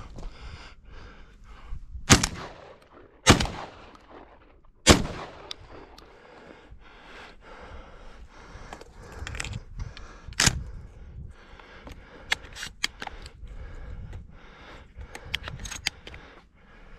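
Sharp knocks and crunches picked up by a camera mounted on a shotgun as it is carried across snow: three loud cracks about two, three and five seconds in and another near ten seconds, with softer clicks between them.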